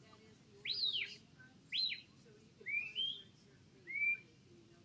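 Handler's shepherd's whistle blown as four short notes about a second apart, each a quick sweep up and down or up and level in pitch: whistle commands directing a sheepdog working sheep.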